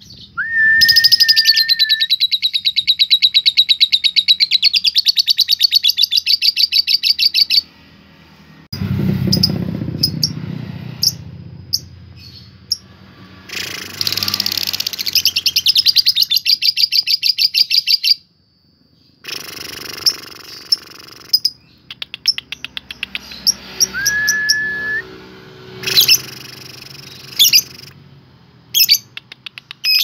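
Lovebird chattering in long, very fast trilled runs, the 'ngekek' prized by lovebird keepers, used as a bait call to provoke other lovebirds. The runs come in several bursts of a few seconds each, with short breaks between. A short, steady whistled note comes near the start and again about 24 seconds in, and a brief low rumble comes around nine seconds in.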